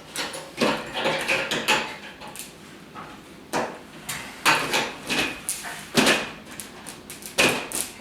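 Irregular scraping, rubbing and knocking of hands working with metal fixture parts and tools while an eight-foot LED shop light is mounted, about a dozen short bursts with the loudest ones toward the end.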